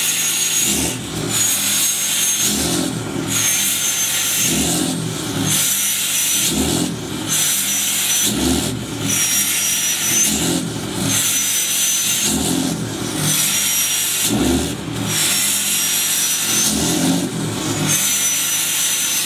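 Cold Dodge Ram Cummins diesel held at high idle with its exhaust brake on. It makes a high whistle from the exhaust, like a boiling tea kettle, that swells and drops about every two seconds over the diesel's low running.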